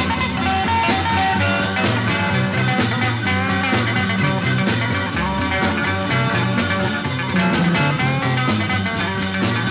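Upbeat rock backing music with guitar, a walking bass line and a steady beat.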